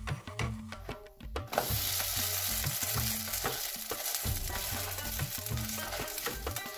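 Green-corn roti frying in hot oil in a karai: a loud, steady sizzle comes in suddenly about a second and a half in, as the roti is turned over with the spatula. Background music with a drum beat runs underneath.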